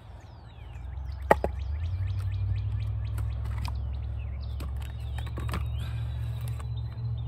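Small birds chirping again and again, with one sharp knock about a second in, over a steady low rumble that swells during the first two seconds and then holds.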